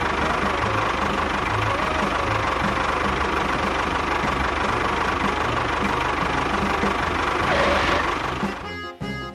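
A machine's motor running steadily with a constant whine, cutting off near the end as music begins.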